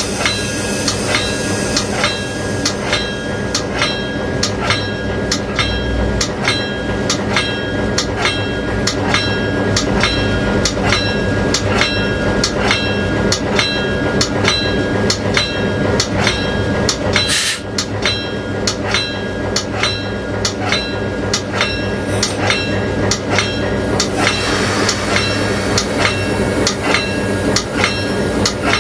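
Diesel locomotive's bell ringing steadily, about two strokes a second, over the low hum of the engine as the train rolls slowly through the station. A short hiss of air sounds about halfway through.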